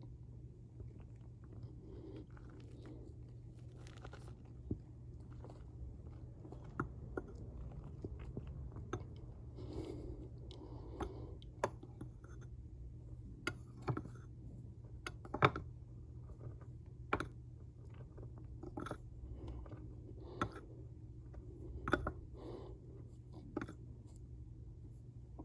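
Cornstarch powder crunching, in irregular sharp crunches of varying loudness, over a steady low hum.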